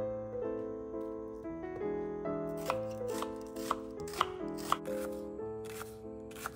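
Knife cutting a red onion on a wooden chopping board, a cut about twice a second starting a couple of seconds in, over soft piano background music.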